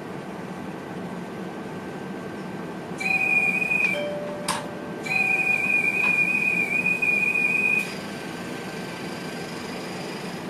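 An electronic warning tone in a VIRM train's driver's cab sounds twice: first for about a second, then after a short gap with a click for nearly three seconds. Steady running noise of the train lies under it.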